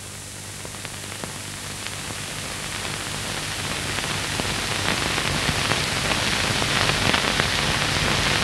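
Steady hiss with scattered crackles over a low hum, slowly growing louder.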